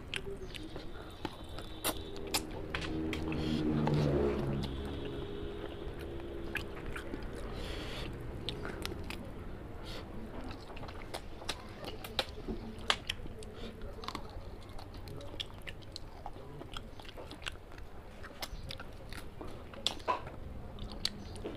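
Close-up chewing and eating of curry with rice: wet mouth clicks and smacks all the way through. About three to five seconds in there is a louder stretch with a low pitched sound for a couple of seconds.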